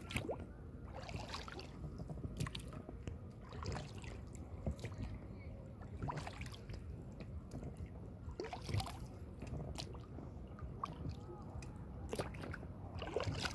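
Oars of a rowboat dipping and pulling through calm lake water, a short splash and slosh with each stroke, about every one to two seconds.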